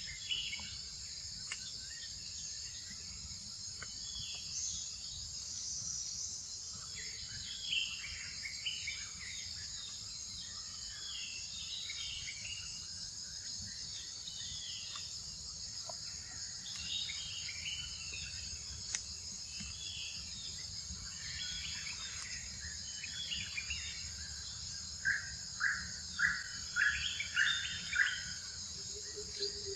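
Steady, high-pitched insect chorus of crickets or cicadas, with scattered chirping calls over it. Near the end comes a run of six short, louder chirps about half a second apart.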